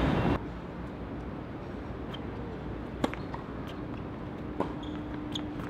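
A few sharp, isolated knocks of a tennis ball over quiet background; the clearest comes about three seconds in. Louder noise cuts off abruptly about half a second in.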